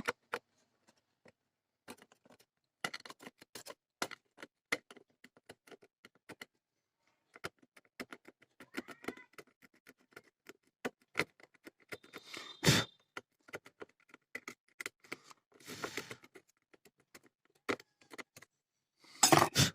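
Scattered light clicks and scratching of a freshly soldered circuit board being cleaned by hand, with a couple of louder scrapes about two-thirds of the way through.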